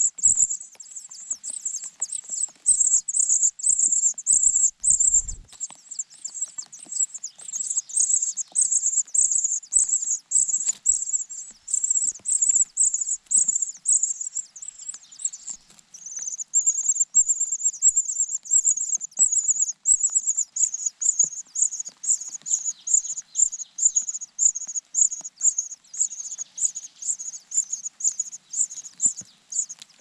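Nestlings, among them a cuckoo chick, begging with a rapid, continuous stream of high-pitched chirps, several a second, with a brief pause about halfway.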